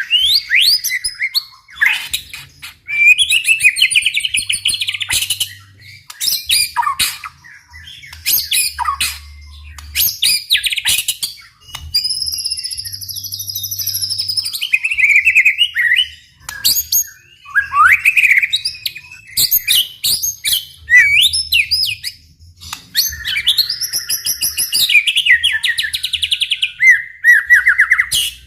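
White-rumped shama (murai batu) singing in full, vigorous song. It runs through a long string of varied phrases: rapid trills, slurred whistles and sharp clicking notes, with short breaks between phrases.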